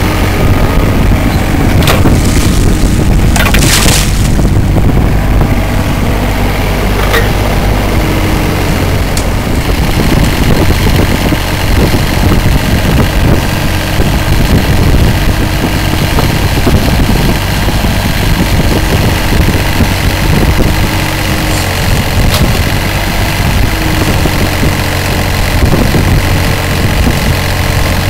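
Hitachi 30Z mini excavator's diesel engine running steadily while the machine works its hydraulic arm and bucket. A few sharp knocks come about two and four seconds in.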